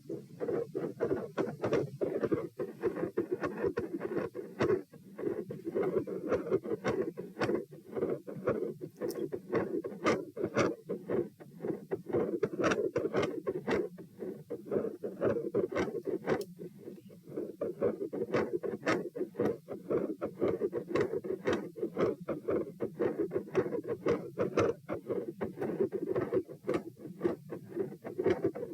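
Fast heartbeat recorded against the chest, heard as a dense run of sharp clicks over a low sound. Its loudness swells and fades every few seconds with the breathing cycle: the continuous phasic respiratory pattern in the heart sounds.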